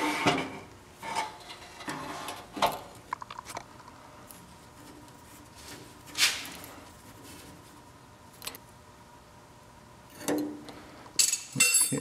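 Sheet-metal burner access door and burner assembly of a gas water heater being slid into the burner compartment and handled: a series of metal clanks and scrapes in the first few seconds, a brief scrape about six seconds in, and a cluster of small metal clicks and clinks near the end.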